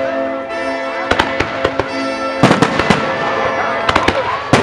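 Aerial fireworks going off over music: a scatter of sharp bangs from bursting shells, several in quick succession, over a held musical chord. About two and a half seconds in, the music changes and a denser run of bangs follows.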